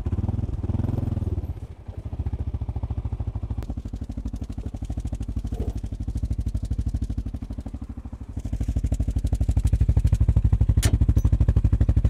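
ATV engine running: it eases off in the first second or two, then idles with a rapid, even pulse. About eight seconds in, a louder, steady engine note sets in and holds.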